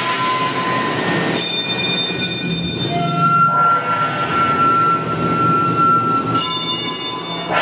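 Metallic scraping and squealing from a cymbal worked against taut strings, with a steady rasp under held squealing tones. Bright metallic ringing swells in about one and a half seconds in and again near the end.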